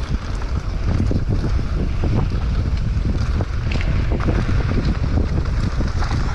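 Wind buffeting the microphone of a camera riding on a Specialized Enduro mountain bike descending fast on a dirt trail, with a steady deep rumble and many quick clicks and clatters as tyres, chain and frame rattle over the bumps.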